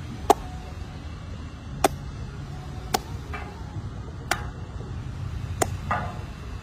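Badminton rackets striking a shuttlecock in a rally: five sharp ticks, one every second or so, over a steady low rumble.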